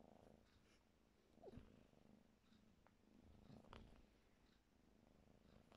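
Faint purring from a kitten while it play-fights, swelling twice, with a few brief soft sounds over it.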